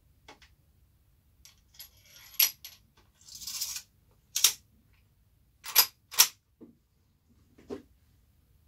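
Metallic clicks and clacks with a short scraping rattle from loading and handling a brass-framed Henry lever-action rifle in .45 Long Colt. Two loud clacks about half a second apart, a little past the middle, fit the lever being worked open and shut to chamber a round.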